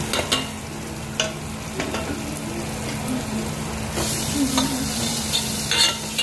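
A spoon stirring and scraping onion-tomato masala in a metal pot, with sharp clinks against the metal, over a steady sizzle of frying that grows louder about two-thirds of the way in.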